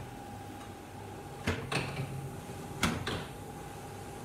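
Electric dough sheeter running with a steady hum, with two pairs of sharp clunks from the machine as the dough is passed through the rollers and the settings are worked.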